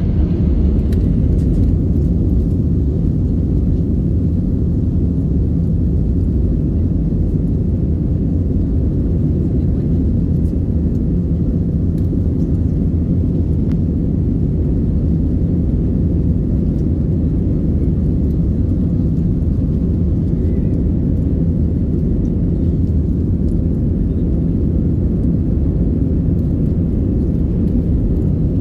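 Airbus A320neo passenger cabin noise: a steady low rumble of engines and airflow, with no rise or change through the stretch.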